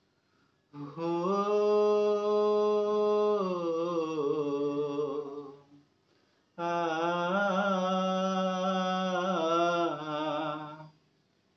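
A man singing unaccompanied, holding two long drawn-out notes without words, each about five seconds long and wavering in pitch near its end, with a short silence between them.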